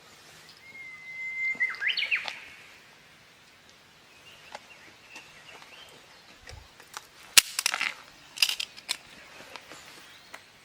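Japanese bush warbler (uguisu) singing one phrase: a long steady whistled note, then a quick rising-and-falling warble that ends about two seconds in. Later come a few sharp clicks and short hissy bursts, the loudest click about seven seconds in.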